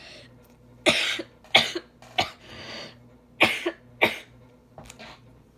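A person coughing: a fit of several sharp coughs coming in two pairs, with a weaker cough and a breath between them.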